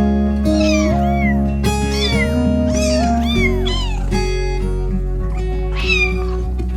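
Background music with steady held notes, over which a cat meows several times in quick succession, then once more near the end.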